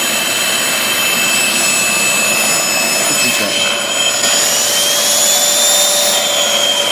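Hoover Dual Pro carpet washer running, its suction motor drawing through the hose and upholstery brush tool with a loud, steady noise and a high whine. About four seconds in, one whine rises in pitch and then falls back. The machine is sucking up water from the upholstery.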